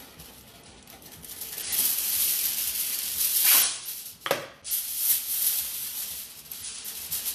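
Aluminium foil pulled off the roll and torn from its box, then rustling and crinkling as the sheet is shaped over a dish. The rustling begins about two seconds in, with a couple of sharp rips a little after halfway.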